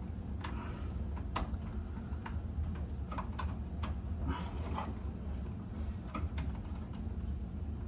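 Scattered light clicks and taps of hand tools and wire being worked at an electrical panel, with a brief scrape about halfway through, over a steady low hum.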